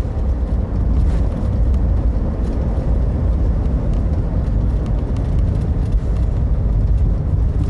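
Interior of a passenger airliner cabin during its landing sequence: a steady, loud low rumble of engines and airflow, with a faint steady hum above it.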